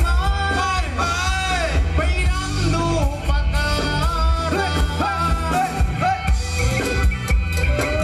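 Live band playing upbeat Thai ramwong dance music: a sung melody over a steady, heavy bass and drum beat.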